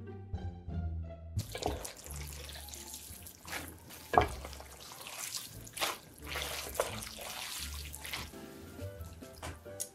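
Background music, then from about a second and a half in, wet squelching and slapping of jajangmyeon noodles in thick black bean sauce being lifted and stirred with chopsticks, with several louder wet splats, the music carrying on underneath.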